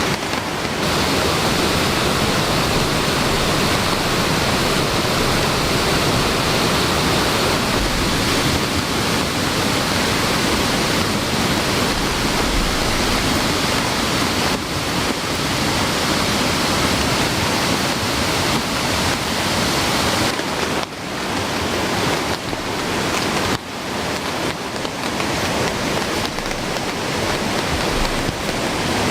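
Heavy rain falling beside a rain-swollen mountain stream, the water rushing in a loud, steady wash of noise that briefly drops twice near the end.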